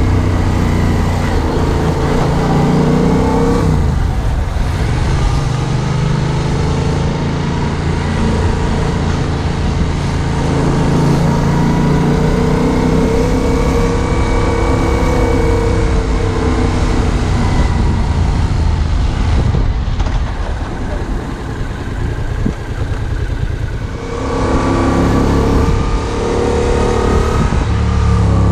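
2015 Yamaha MT-07's two-cylinder engine running under way, heard from the rider's chest: it pulls steadily, eases off for a few seconds past the middle, then picks up again near the end.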